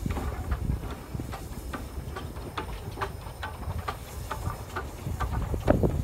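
1920 Cockerill vertical-boilered steam tank engine rolling slowly along the track. A low rumble carries a run of irregular clicks and knocks from its wheels and motion, with a louder knock near the end.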